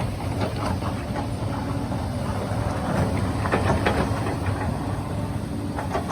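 Hyundai 220 excavator's diesel engine running steadily, with repeated knocks and scrapes of rock and metal as it works a large stone, the knocks bunching about half a second in, around three to four seconds in, and near the end.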